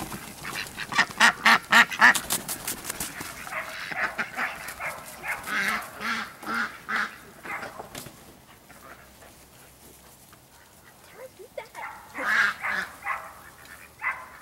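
A flock of domestic ducks quacking, with rapid runs of calls in the first few seconds, dying down past the middle and picking up again near the end.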